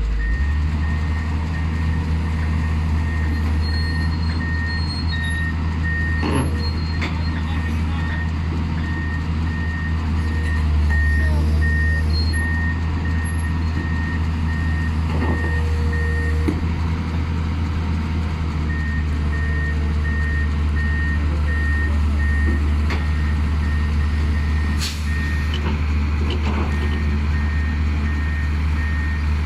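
Backhoe loader's engine running steadily while a reversing alarm beeps at an even pace. The alarm pauses briefly a little past halfway through, then starts again, and there are a few scattered knocks.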